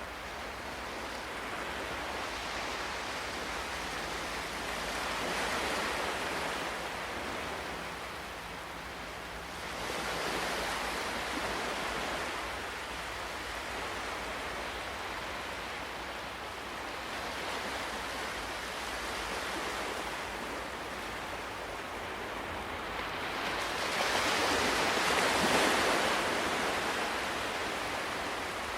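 Ocean waves: a steady surf hiss that swells and falls away four times as waves come in, the loudest near the end.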